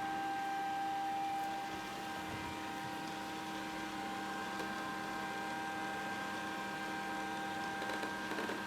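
Grundig VCR 2131 robot vacuum running steadily, its suction fan and motor giving a constant whine over an even rushing noise.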